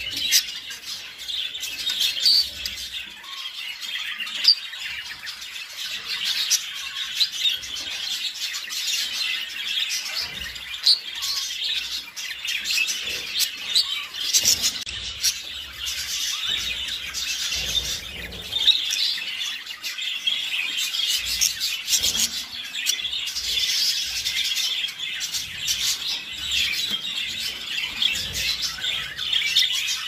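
Budgerigars warbling and chattering while mating: a continuous stream of quick, high chirps and squeaks with no pauses.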